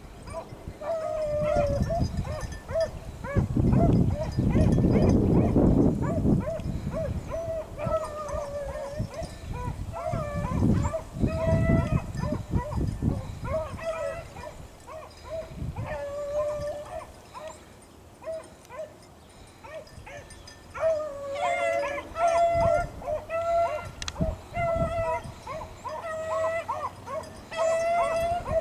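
Beagle rabbit hounds baying on a rabbit's track: a steady run of bawling calls that lulls briefly past the middle and picks up again near the end, the sign of the hounds in full chase. Low rumbling on the microphone in the first half.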